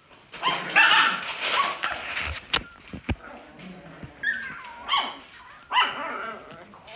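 Alaskan Klee Kai puppies yipping and barking as they play-fight, with a burst of high yips in the first couple of seconds and then short barks about once a second near the end. Two sharp knocks come near the middle.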